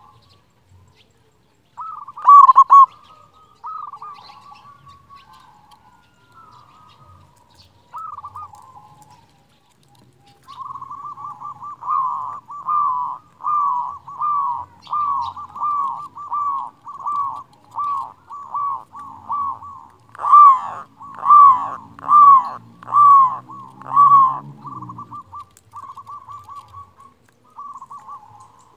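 A local zebra dove (perkutut) cooing with a big voice. A couple of loud coos come near the start, then from about ten seconds in a long run of evenly spaced coos follows, about three every two seconds and loudest near the end, before trailing off into softer, quicker notes.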